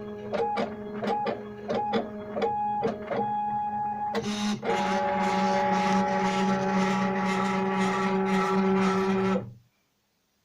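Stepper motors of a homemade CNC machine whining as the axes move. The pitch jumps back and forth between two notes with a click at each change, then holds as one denser steady whine that cuts off suddenly near the end.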